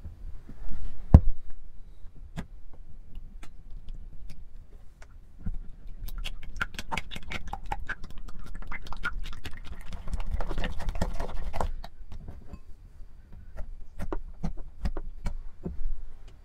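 Silicone spatula stirring thick, sticky slime in a glass bowl: wet clicking and crackling, densest and loudest from about six to twelve seconds in, with a single knock about a second in.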